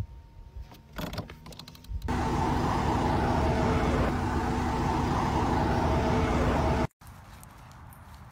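Steady road and engine noise of highway traffic heard from beside a car, with a steady hum of several tones; it starts abruptly about two seconds in and cuts off about five seconds later. Before and after it the sound is much quieter, with a few soft clicks.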